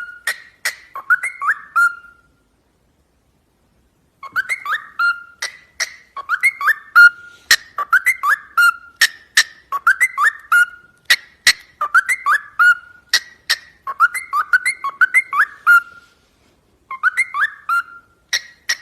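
A parrot repeating a short whistled chirp phrase about once a second, each slightly falling phrase mixed with sharp clicks. The sound stops for a couple of seconds about two seconds in.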